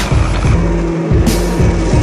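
Background music with a steady beat, over the running engine and spray of a jet ski at speed.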